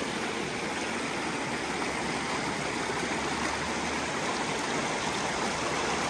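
Barton Creek's shallow water running over rocks and small riffles: a steady rushing babble of flowing water.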